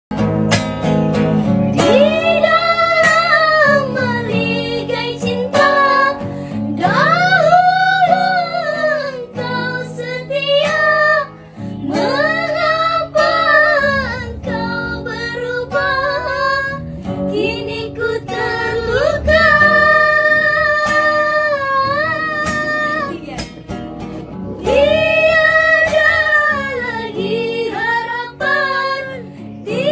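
A high solo voice singing a slow rock ballad over guitar accompaniment, in long phrases with held notes that waver in pitch.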